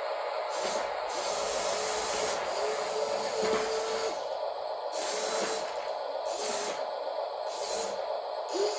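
Toy radio-control excavator's electric motors whining, starting and stopping several times as the boom and bucket move, over a scraping rustle of the bucket digging into dried beans.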